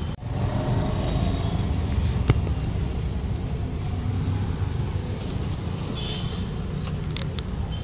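Road traffic noise: a steady low rumble of passing vehicles, with a brief faint high tone about six seconds in.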